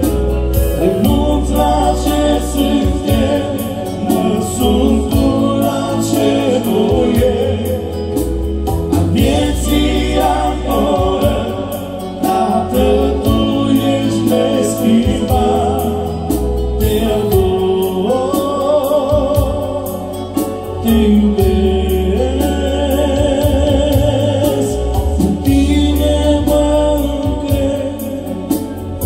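Christian gospel song: singing voices with vibrato over a band with a steady bass line and beat.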